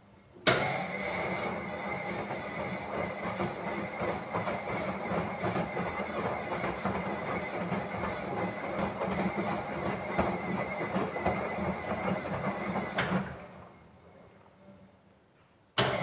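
Miele Professional washing machine drum turning with laundry tumbling during a 50 °C whites wash, a steady motor hum under the churning of the load. It starts abruptly about half a second in, dies away a few seconds before the end, and starts again abruptly just before the end.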